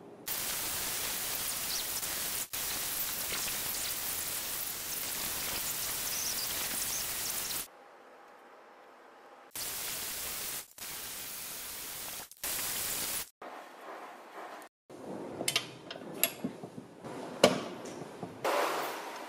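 Bosch angle grinder with a bevel wire brush scrubbing an aluminium engine head cover, an even hiss in several chopped segments with abrupt cuts. In the last few seconds come light metal clinks and knocks of parts being handled.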